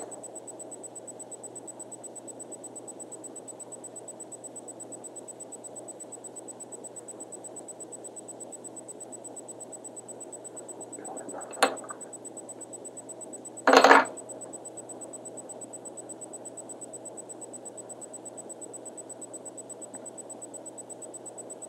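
Small handling noises at a fly-tying bench over a steady background hum with a faint high whine: one sharp click about twelve seconds in, then a louder, brief clatter about two seconds later, like a small tool set down on the bench.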